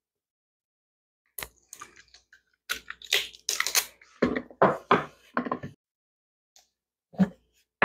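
Red construction seaming tape being pulled off its roll in several short, rasping strips and pressed onto a wooden board, starting about a second and a half in. A single knock near the end.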